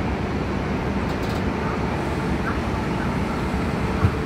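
Steady rumbling hum of a passenger train at a station platform, with one brief thump about four seconds in.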